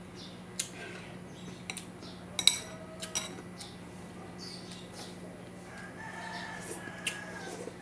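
Spoon clinking on dishware a few times, the loudest strike about two and a half seconds in and ringing briefly; near the end a rooster crows once in the background.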